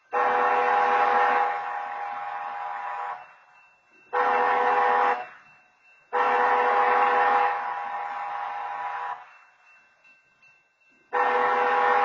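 Railroad horn sounding the grade-crossing signal as a chord of several tones. It gives a long blast of about three seconds, a short one, another long one, and starts a fourth blast about eleven seconds in. Each blast switches on and off abruptly.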